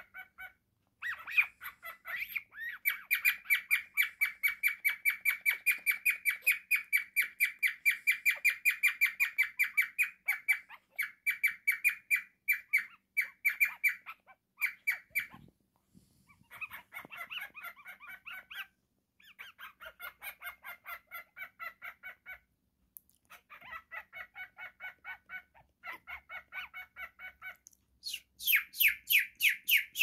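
Cockatiel singing: long runs of rapid, evenly repeated short chirping notes, broken by brief pauses, with a louder, shriller burst near the end.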